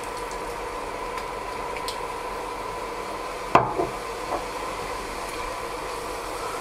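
Noodles and vegetables frying in oil in a pot with a steady hiss as soy sauce is poured over them, under a steady electrical hum from the electric hob plate. A single sharp knock about three and a half seconds in, as the soy sauce bottle is set down.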